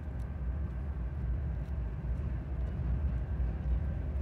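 Norfolk Southern diesel locomotive approaching slowly, its engine a steady low rumble that grows slightly louder, with a few faint ticks.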